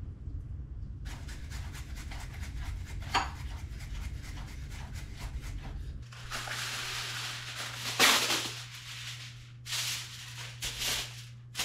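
A knife crunching through boiled spiny lobster shell on a wooden cutting board, a rapid run of small cracks. About six seconds in, aluminum foil crinkles and rustles as it is spread over a sheet pan, in several loud bursts, the loudest about eight seconds in.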